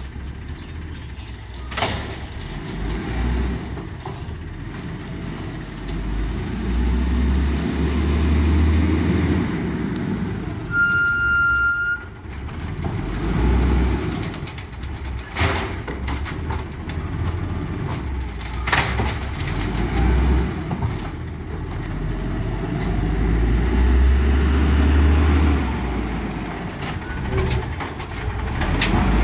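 Autocar WXLL garbage truck with an Amrep Octo automated side-loader body working along the curb. Its engine rumbles and surges in level twice as it pulls up, with sharp air-brake hisses and a short high squeal about a third of the way in.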